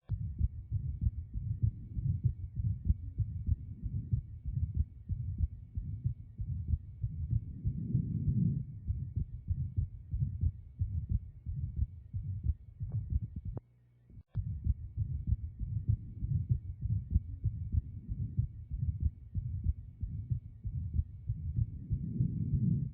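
Abnormal heart sounds of an atrial septal defect heard through a stethoscope: a steady run of low heartbeats with a murmur. The sound breaks off briefly a little past halfway, with a couple of sharp clicks.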